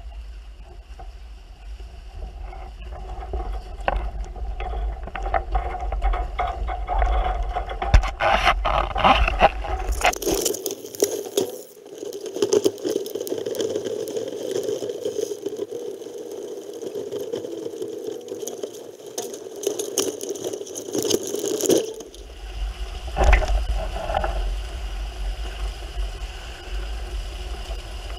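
Wind buffeting the microphone and water washing around the hulls of a Hurricane 5.9 Sport catamaran, with clatters and scrapes of the boat's gear and fittings. For a stretch in the middle the low rumble drops out and a steadier hiss takes over.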